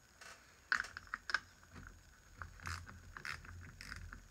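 A few light clicks and knocks, several sharp ticks close together about a second in and more scattered through the rest: small tools or parts being handled on a workbench.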